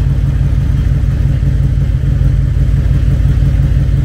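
Harley-Davidson Electra Glide Classic's V-twin engine running steadily at idle, with an even low pulse.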